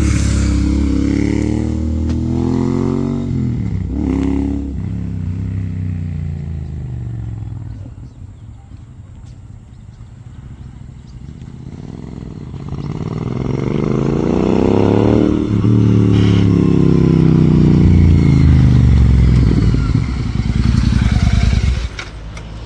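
Royal Enfield Continental GT 650 parallel-twin motorcycles with AEW megaphone silencers riding past twice. Each time the engine note rises as the bike approaches and drops in pitch as it goes by, the first pass about four seconds in and the second about fifteen seconds in.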